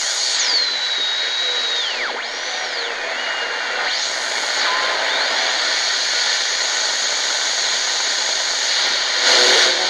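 Tecsun GR-138 shortwave radio's speaker hissing with static between stations. Thin heterodyne whistles glide down, hold, and rise again in pitch as the dial is tuned. The noise swells briefly near the end.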